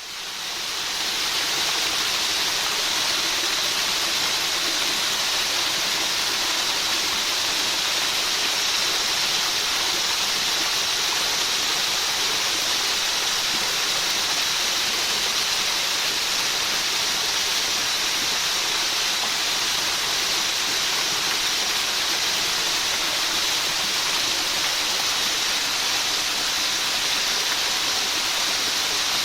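Steady, heavy rain: a dense, even hiss that fades in over the first second or so, then holds level.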